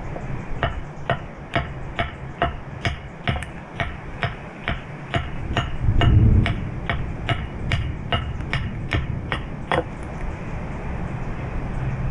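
A carving tool striking a wooden spoon blank in a steady rhythm, about two strikes a second. Each strike is a sharp knock with a short ring, and the strikes stop about ten seconds in. A dull low thump comes about six seconds in.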